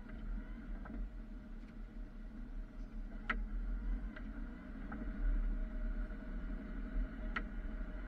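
Plow truck's engine running steadily, heard from inside the cab as a low rumble and hum, with a few sharp clicks; the two loudest come about three and seven seconds in.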